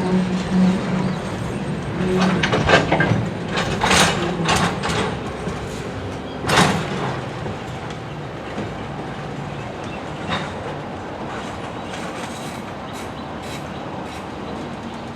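Freight train moving during switching: a diesel locomotive engine hums steadily under a run of sharp metallic clanks and clicks from the cars' wheels and couplers. The clanks bunch up in the first half and thin out to a few scattered clicks later.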